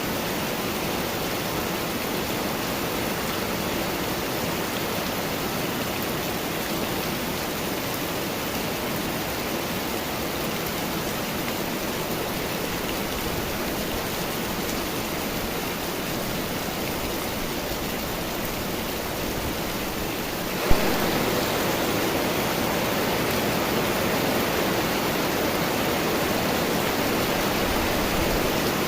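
Steady summer-storm rain. About two-thirds of the way through there is a single sharp click, and after it the rain is louder.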